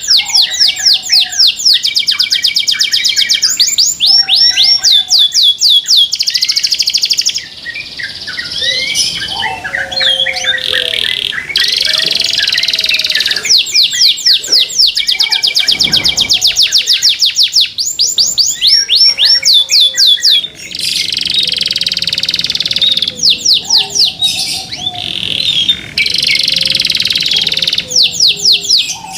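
Domestic canary singing loudly in fast trills of rapidly repeated high notes, several a second, broken by short pauses between phrases.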